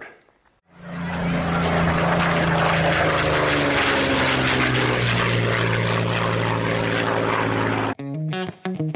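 Propeller aircraft engine running at a steady pitch, starting about a second in and cutting off suddenly near the end. A plucked-string music track then begins.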